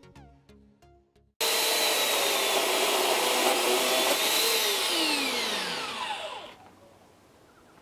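Background music, then about a second and a half in a corded Homelite electric chainsaw starts up at full speed, ripping a small log lengthwise in a chainsaw mill. About three seconds later the trigger is let go and the motor winds down, its whine falling in pitch until it stops.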